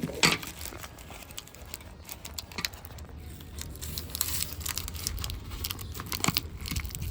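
Paper being handled: irregular crinkling and rustling with small clicks, a few louder crackles among them, over a faint low rumble.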